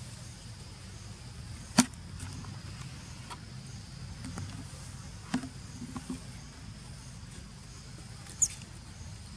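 Forest ambience: a steady insect drone over a low rumble, broken by sharp clicks about two and five seconds in and a short high chirp-like click near the end.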